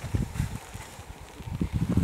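Wind buffeting the microphone: irregular low rumbling gusts, strongest near the start and again in the second half.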